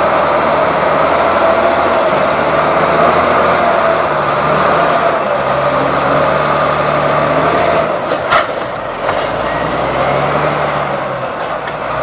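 Diesel engine of an Amkodor 2661-01 forwarder running as the log-laden machine drives through the forest. A sharp crack comes about eight seconds in, and after it the engine note drops lower and quieter.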